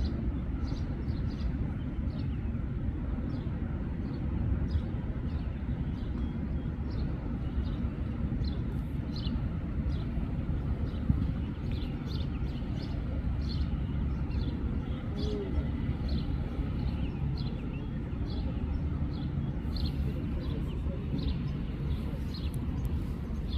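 Small birds chirping repeatedly, short high chirps about once or twice a second, over a steady low rumble.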